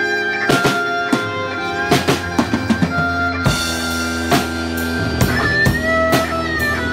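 Live rock band: a clear acrylic Pearl drum kit plays a busy run of rapid hits, then spaced beats from about halfway through. Over the drums an electric guitar holds sustained lead notes that bend in pitch.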